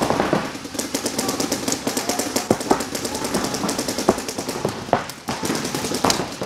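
Paintball markers firing in rapid streams, a dense run of quick pops with a few louder sharp cracks standing out.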